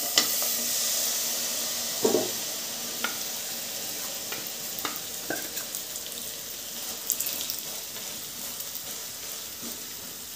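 Grated jaggery sizzling as it drops into hot ghee in a non-stick kadhai: a steady hiss that slowly fades. A few light knocks come from the steel bowl and wooden spatula against the pan.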